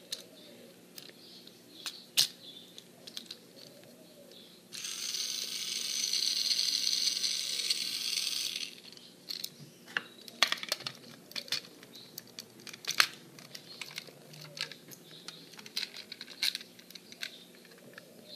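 Small plastic clicks and knocks as an AA battery is fitted into a TrackMaster toy engine's chassis. About five seconds in, the battery-powered toy motor whirs steadily for about four seconds, then cuts off suddenly.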